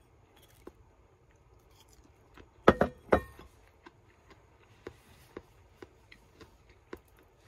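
Two sharp clinks of tableware about half a second apart, a little under three seconds in, among faint scattered taps and clicks.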